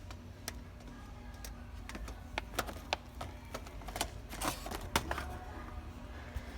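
Irregular light clicks and knocks, about a dozen spaced unevenly over a few seconds, over a steady low hum.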